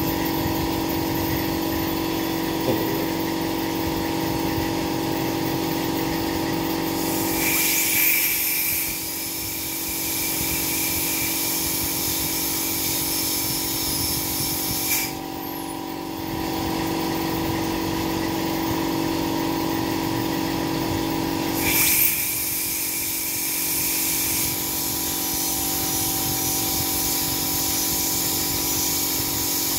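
High-speed dental air-turbine handpiece with water spray cutting an upper front tooth, preparing it for a porcelain crown. It runs in long stretches with short drops and restarts, over a steady hum.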